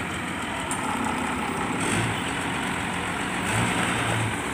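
Truck and other vehicle engines idling, a steady engine drone with a low hum that swells briefly now and then.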